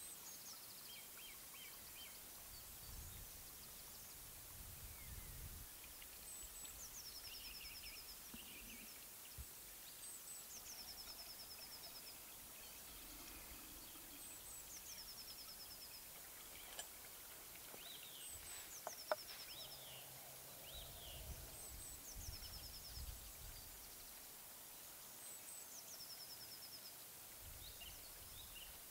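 Quiet outdoor ambience: a small songbird repeats a short high song about every four seconds, a high note dropping into a fast, even trill. There are a few low rumbling bursts and a single sharp click about two-thirds of the way through.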